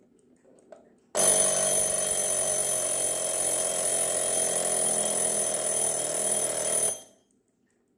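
Soviet mechanical alarm clock's bell ringing without a break for about six seconds, starting about a second in and then cutting off.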